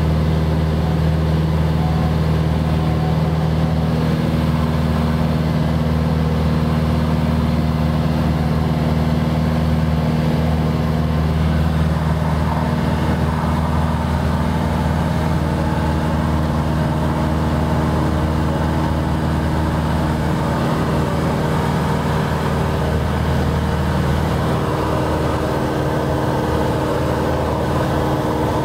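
Cessna 180's six-cylinder Continental O-470 engine and propeller droning steadily in flight, heard from inside the cabin.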